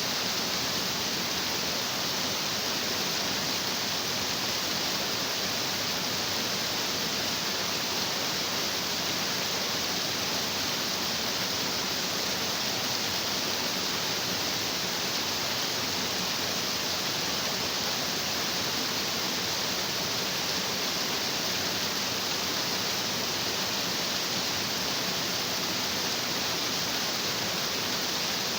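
A stream of water rushing over rocks, a steady, unbroken hiss that does not change.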